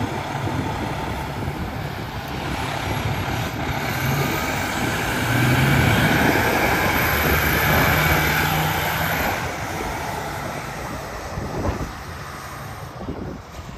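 Detroit Diesel Series 60 inline-six diesel of a 2001 American LaFrance Eagle tower ladder truck pulling away and driving past. It grows louder toward the middle, then fades as the truck moves off.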